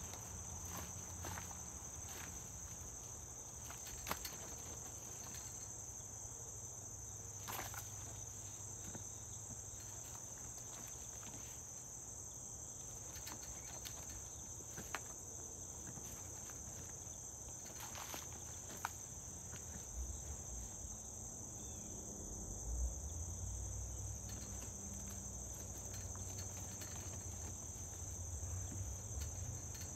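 Insects chirring steadily in one continuous high-pitched drone. There are a few faint clicks, and a low rumble comes in during the second half.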